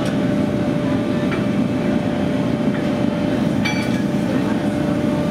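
Heavy forging machine in a blacksmith's shop running with a steady mechanical drone and a constant hum, while hot steel is held between its dies. A light metallic clink rings out briefly a little over halfway through.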